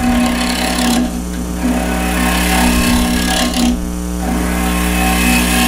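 Spindle gouge cutting across the face of a spinning wooden blank on a wood lathe, flattening it: a steady scraping cut over the lathe motor's hum. The cut breaks off briefly about a second in and again near four seconds.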